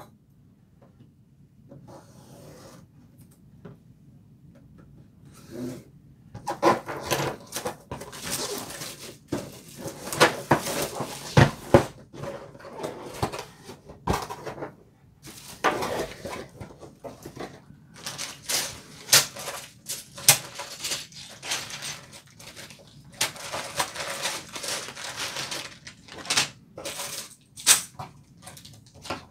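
Unpacking a cardboard kit box by hand: cardboard sliding and scraping, plastic bags crinkling, and loose Lego bricks clicking and rattling inside their bags. It is faint for the first few seconds, then a busy run of sharp clicks and rustles.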